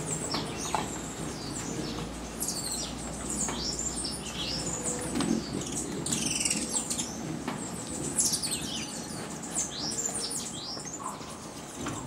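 A busy chorus of small birds chirping: many short, high, downward-sliding chirps and squeaks overlapping without a break.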